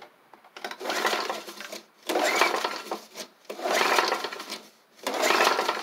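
Recoil starter of a Tecumseh engine on a Snapper Hi Vac push mower being pulled four times, each pull about a second long with short pauses between. The engine does not catch; this is cranking after priming, with no starter fluid.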